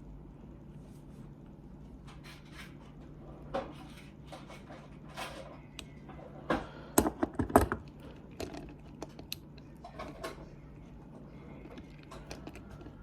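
Scattered small clicks, taps and knocks of hard plastic toy parts being handled and pressed together, with a burst of louder knocks about seven seconds in. A faint steady low hum runs underneath.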